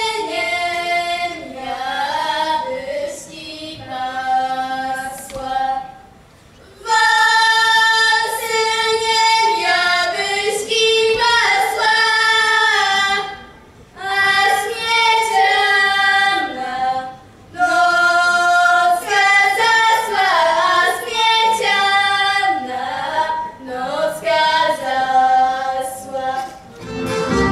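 Girls' voices singing a Polish folk song unaccompanied, in long held phrases with short breaks for breath. The first phrase is quieter, and the singing is fuller and louder from about seven seconds in.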